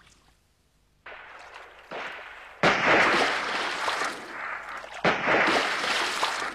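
Gunfire: after a nearly quiet first second, two loud bursts of shooting start suddenly about two and a half and five seconds in, each trailing off over a couple of seconds.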